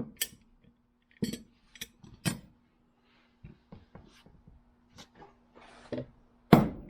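Light metal clicks and clinks as the parts of a pair of channel-lock pliers are handled and fitted together, then near the end a quick series of hammer taps begins, driving the parts home.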